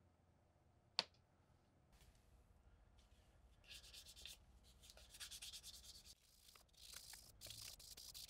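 A single sharp click about a second in, then a small plastic compass capsule being rubbed in irregular strokes on a sheet of sandpaper.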